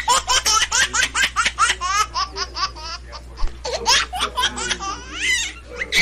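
Rapid, high-pitched laughter: a quick run of short ha-ha notes, about five a second, with a brief break about three seconds in.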